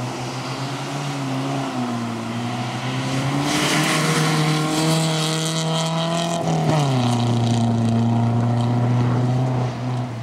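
Volvo 240 rally car driven hard on gravel: the engine runs at high revs and climbs slightly as it comes past, with gravel hissing from the tyres. About six and a half seconds in the engine note drops sharply as it shifts up, then it holds a steady note and fades near the end as the car pulls away.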